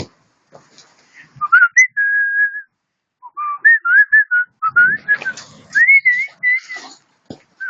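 A person whistling a tune: a long held note about two seconds in, then a run of short notes that slide up and down. A short knock sounds near the end.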